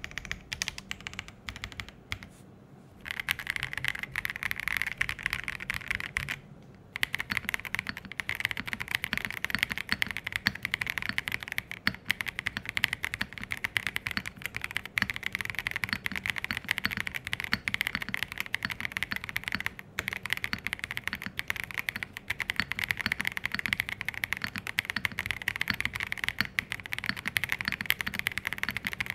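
Typing on an MKC75, a 75% custom mechanical keyboard with an aluminium case and a polycarbonate plate. Keystrokes clatter fast and continuously, with brief pauses about two and a half seconds in and again near seven seconds.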